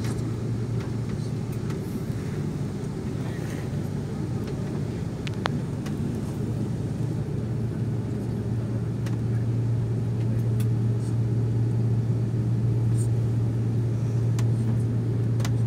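Airliner cabin noise while taxiing: a steady low hum from the jet engines, growing a little louder about ten seconds in, with a few faint clicks.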